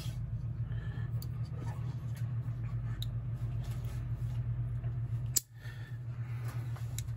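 Small sharp clicks of metal folding-knife parts and a small screwdriver being handled during reassembly, over a steady low hum. The sharpest click comes about five seconds in.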